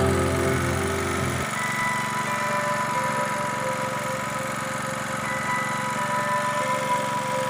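A small engine running steadily. A stretch of background music ends about a second and a half in.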